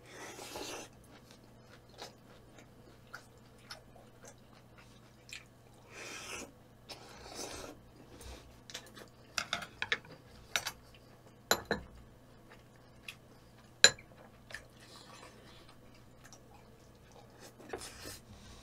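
A person eating: chewing, with utensils clicking and clinking against dishes in scattered sharp strokes, the loudest about fourteen seconds in.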